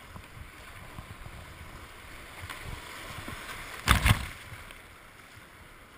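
Rushing white water against a kayak's hull, with a loud splash about four seconds in as the paddle blade throws water over the deck-mounted camera.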